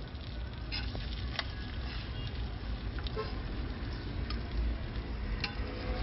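Steady low rumble of street traffic, with scattered sharp clicks and taps of metal tongs and a steel spatula on a flat-top griddle.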